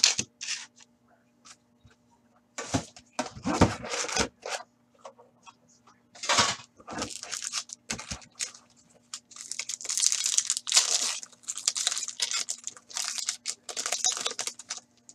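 Foil wrappers of Upper Deck hockey card packs crinkling and tearing as they are pulled open by hand. A few separate handling knocks and rustles come first, then the crinkling grows dense and nearly continuous over the last few seconds.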